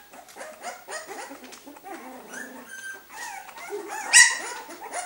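Young puppy whimpering and squeaking in short, high-pitched cries while being bottle-fed, with one louder squeal about four seconds in.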